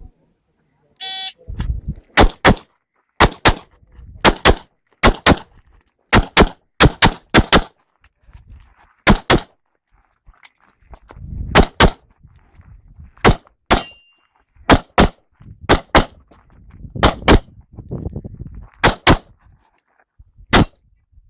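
A shot timer's start beep, then a Glock pistol fired in quick pairs (double taps) through an IPSC stage: about fifteen pairs over some twenty seconds, with short gaps between groups of targets.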